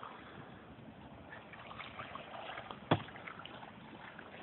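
Faint water sloshing and splashing, with one sharp knock about three seconds in.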